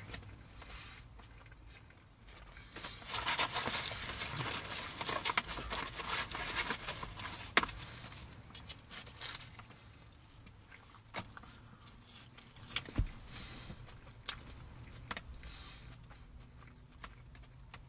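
Close-up eating and food-handling sounds from a fried chicken and fries meal: a few seconds of dense crackling and rustling from about three to eight seconds in, then quieter chewing with scattered clicks and taps.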